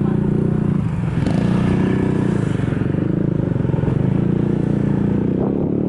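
Motor scooter engine running steadily while riding along, its note shifting slightly about a second in.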